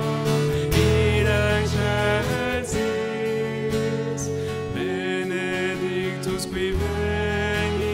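Live church music: acoustic guitar and keyboard playing sustained chords under a sung melody, in a reverberant church.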